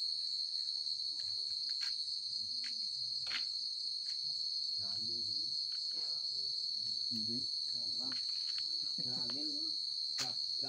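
A steady, high-pitched chorus of night insects chirring without a break, with faint low voices of people talking under it and a few sharp clicks.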